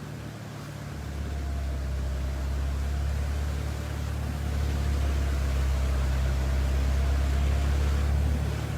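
Force Gurkha SUV's engine running as it drives slowly through floodwater, a steady low drone that swells about a second in and eases off near the end.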